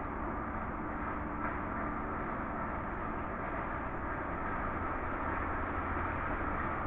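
Roadside mower running steadily on the road above, a continuous engine drone with a faint hum.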